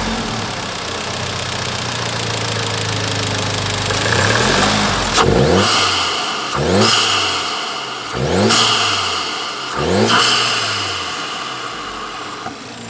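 Seat Leon Cupra 280's 2.0 TSI turbocharged four-cylinder engine, fitted with an open cone-filter induction kit, idling steadily. From about four seconds in it is revved four times, roughly every second and a half, with a hiss rising over each rev, then it drops back to idle.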